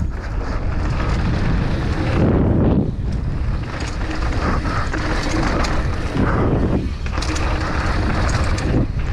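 Wind rushing over the microphone and tyre noise of an NS Bikes Fuzz 29 downhill mountain bike riding fast down a dry dirt and gravel trail, with steady clicking and rattling from the bike and its chain slapping.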